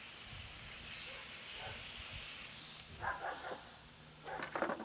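Pork chops and chicken sizzling on the hot grates of a wood-fired Santa Maria grill, a steady hiss that fades about three seconds in. A dog barks briefly twice, about three seconds in and again near the end.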